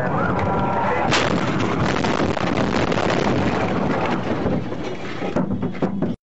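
Police car crash: a siren wails, then about a second in there is a loud impact, followed by several seconds of harsh, dense crashing noise. The sound cuts off abruptly near the end.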